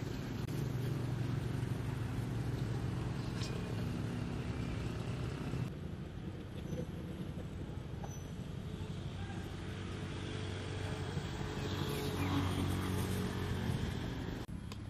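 Steady low hum of vehicle engine and traffic noise. The level drops abruptly about six seconds in and again near the end.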